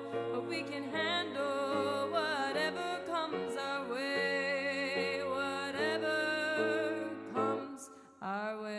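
Music: a slow song with a singer holding wavering notes over sustained chords. Near the end the music dips briefly, then comes back in on a new held chord.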